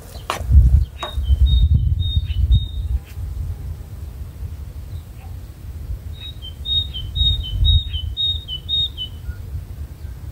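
A songbird singing a quick run of repeated high two-note phrases, once about a second in and again from about six seconds, over a loud, uneven low rumble.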